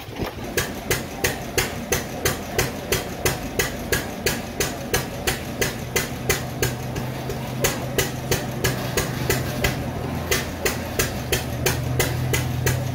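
Machine knocking at a steady, even rate of about three strokes a second, over a low steady hum that grows stronger about halfway through.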